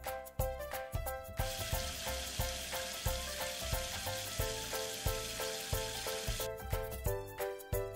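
Background music with a steady beat, with a steady hiss of water spraying from a toy car-wash playset. The hiss starts about a second and a half in and stops about five seconds later.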